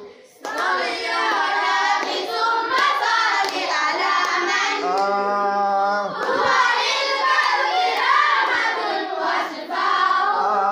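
Voices of a munshid and his students singing an Arabic religious nasheed without instruments, drawing out long melodic phrases between the verses. The singing resumes about half a second in, after a brief dip.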